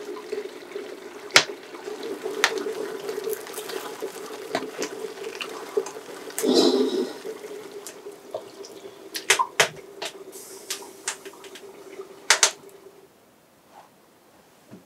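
A spoon stirring thick corn porridge in a metal pot and scraping it out into a clay bowl, with scattered sharp knocks and scrapes of the spoon against the pot. A steady low hum runs beneath and stops near the end.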